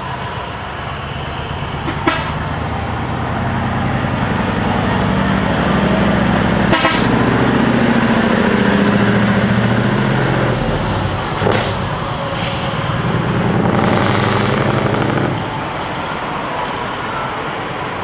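Heavy diesel engine of a decorated truck pulling past, growing louder and then easing off about fifteen seconds in, with a few short sharp hisses along the way.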